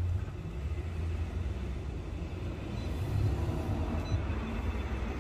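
A steady low rumble of city road traffic.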